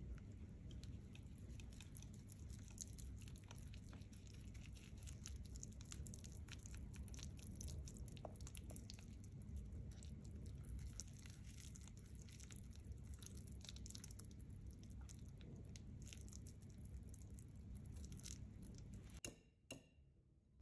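Wire whisk beating a thick almond-flour and egg batter in a ceramic bowl: faint, irregular clicks of the wires against the bowl with soft squishing. The sound cuts out about a second before the end.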